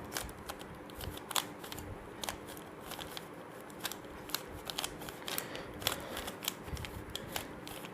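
Layers of a plastic 3x3 Rubik's Cube being turned by hand, clicking at an irregular pace.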